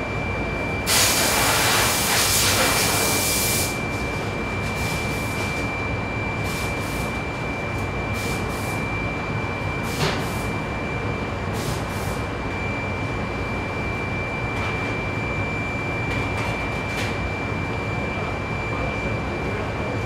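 Commercial rotating rack oven running while baking manju, a steady mechanical hum with a high whine over it. About a second in comes a loud hiss of under three seconds, with several short hisses later, as steam and air move through the oven.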